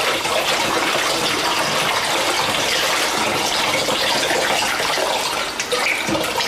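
Water pouring steadily through a 3D-printed funnel into a running humidifier's tank, a continuous splashing gush.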